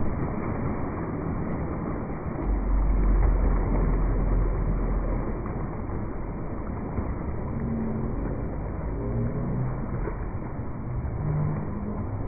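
Pool waterfall feature running, water pouring and splashing into the swimming pool as a steady rush.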